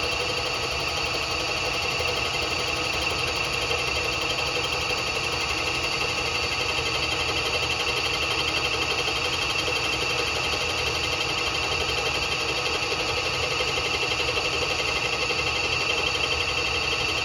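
Bridgeport milling machine running steadily as a CBN cutter skims the deck of an aluminum-and-iron Harley-Davidson cylinder, a constant machine sound with a steady high whine. The machine, not yet anchored to the floor, vibrates slightly as it cuts.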